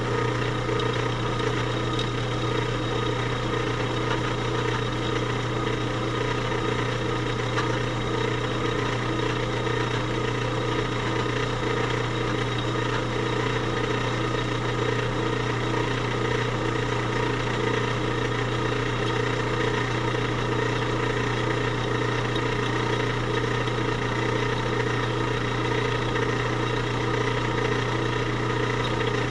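A machine running steadily with a constant low hum and a set of fixed higher tones, unchanging in speed throughout.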